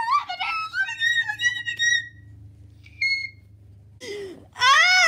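A person's high-pitched, squeaky wordless voice squealing with bending pitch, then, near the end, a loud wavering wail like exaggerated crying.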